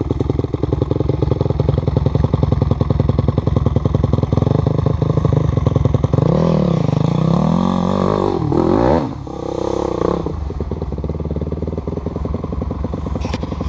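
Enduro dirt bike engine working hard up a steep slope. It runs steadily at first, revs up and down several times from about six seconds in, then drops suddenly and runs on fainter near the end.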